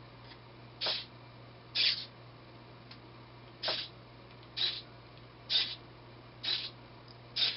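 Small hobby servo motor of a homemade solar tracker whirring in short steps, seven brief whirs roughly a second apart, as it turns the light-sensor head to follow a moving lamp.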